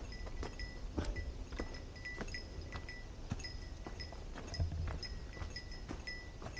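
A small hiker's bear bell jingling with each stride, about twice a second, mixed with quick footsteps on a dirt trail.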